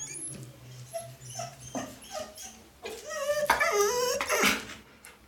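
Golden retriever whining and panting, with short high yips near the start and a louder, wavering whine for over a second about three seconds in: the talkative complaining of a dog that does not want to be at the vet.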